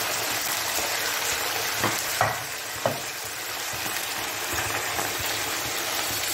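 Mutton pieces sizzling in hot oil in a nonstick pan, a steady hiss, with a few sharp knocks of a spatula against the pan about two to three seconds in as the meat is stirred.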